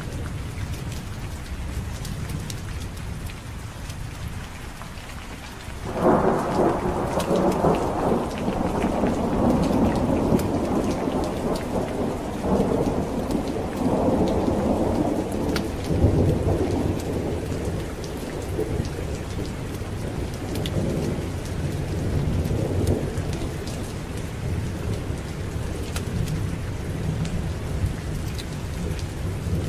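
Steady heavy rain with thunder: about six seconds in a loud thunderclap breaks and rolls on for around ten seconds, slowly fading into a low rumble under the rain.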